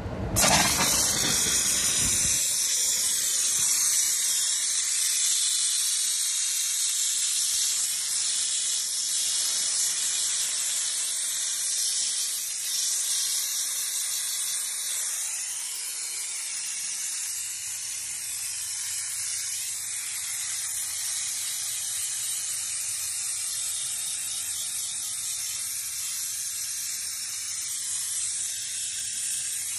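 Optima steamer's nozzle jetting steam onto marine vinyl in a steady, high hiss, a little quieter from about halfway through.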